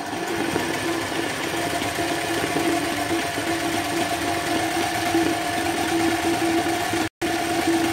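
Sewing machine running steadily at speed, stitching a dense satin fill while the fabric is guided by hand. The sound cuts out for an instant just after seven seconds.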